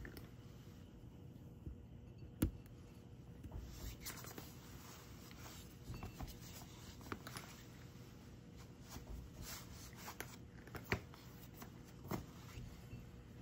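A cat crunching dry kibble: soft, irregular crunches and clicks, several seconds apart.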